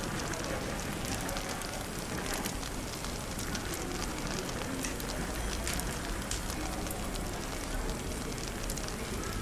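Fireplace crackling, an irregular scatter of small pops and snaps, over a steady bed of indistinct cafe chatter.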